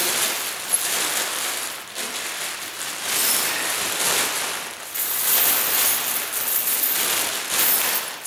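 Steel tire chains clinking and rattling continuously as they are handled and pushed into a plastic bag, with the bag crinkling, easing off briefly about two seconds in and again about five seconds in.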